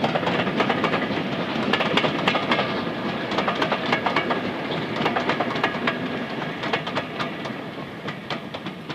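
Passenger coaches of a train rolling past, their wheels clicking over the rail joints in irregular clusters over a steady rumble, fading away as the rear of the train moves off.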